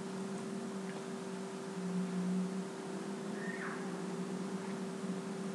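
Steady low electrical hum with a faint even hiss: background room tone with no distinct events.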